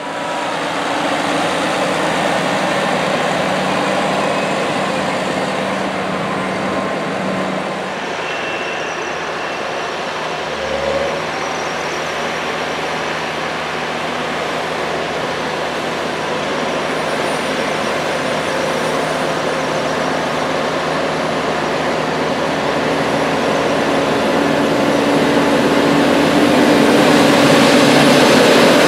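Deutz-Fahr 9340TTV tractor's 7.8-litre Deutz diesel engine running under load as it pushes corn silage with a dozer blade. The engine note shifts pitch now and then and grows louder near the end.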